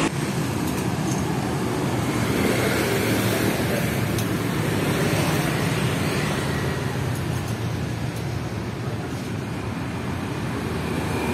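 Steady road traffic noise, with a few faint clicks.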